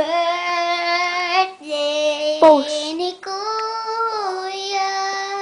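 A young girl singing in three long held notes.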